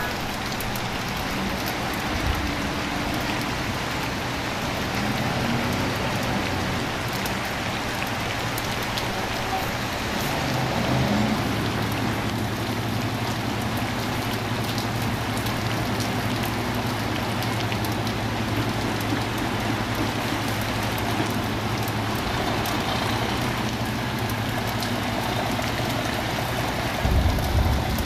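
Steady rain falling on pavement and a wet street, with traffic running. About ten seconds in, a heavy vehicle's engine sets in idling with a low steady hum. Near the end a louder low rumble comes as a vehicle moves past.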